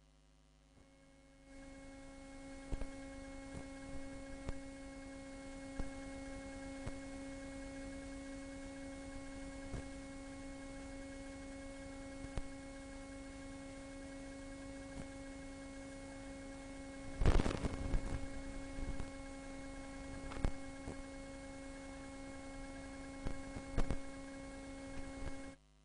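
Steady electrical hum on the audio line, a buzzing tone with evenly spaced overtones over a hiss, starting about a second and a half in. Scattered clicks run through it, with a louder crackle about seventeen seconds in.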